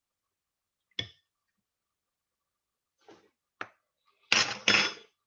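Kitchen handling noises against dead silence: a sharp click about a second in, a faint rustle and another click a little past three seconds, and two brief louder scraping or splashing bursts after four seconds, from working noodles down into a bowl of hot water.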